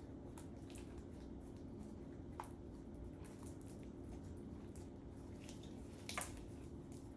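Homemade slime being squished and handled, giving a few faint sticky clicks, the loudest about six seconds in, over a steady low hum.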